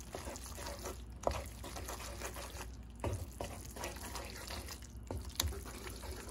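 Wooden spoon stirring spaghetti through a thick, creamy sauce with grated cheese in a nonstick pan: wet, sloppy stirring with a few soft knocks of the spoon against the pan.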